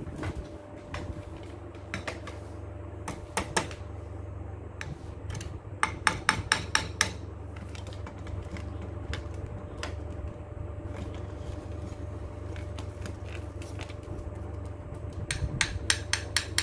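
Alexandrine parakeet tapping its beak against a hand mirror: scattered single knocks, then quick runs of about five taps a second, one run a few seconds in and another starting near the end.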